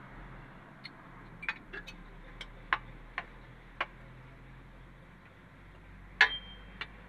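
Hand tools (screwdriver and spanner) clicking and tapping on the metal valve gear of a truck engine while the tappets are being adjusted: irregular sharp metallic clicks, the loudest about six seconds in with a brief ring.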